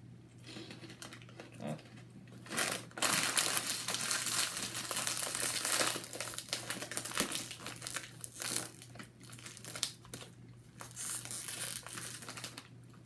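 Plastic snack bag crinkling as it is crumpled and folded over at the top by hand. The rustle comes in gusts, loudest from about two and a half to six seconds in, then in shorter bursts.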